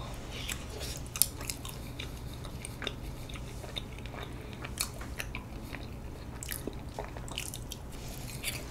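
Close-miked mouth sounds of biting and chewing soft, sticky rice cakes (bandal-tteok): scattered small wet clicks and smacks, the sharpest about a second in.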